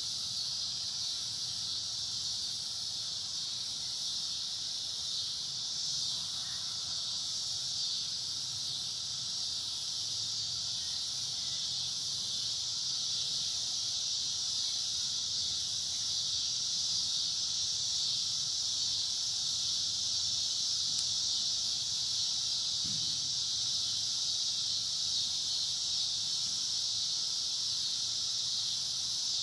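Steady, high-pitched drone of an insect chorus, continuous and unchanging.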